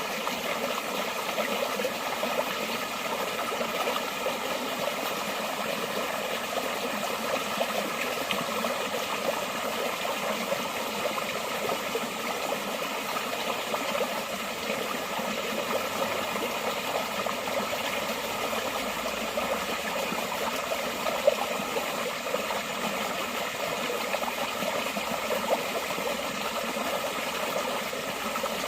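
Forest stream flowing steadily, an even rushing and splashing of water. There is one brief sharper splash or click about two-thirds of the way through.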